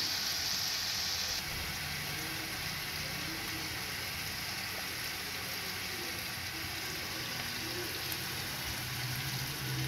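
Chicken pieces sizzling in a frying pan with spices and sauce: a steady frying hiss, a little brighter for about the first second and a half and then even.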